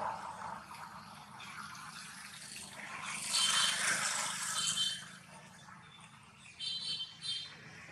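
A plastic water bottle crinkling and water gurgling as a long-tailed macaque drinks from it, in bursts a few seconds in and again near the end.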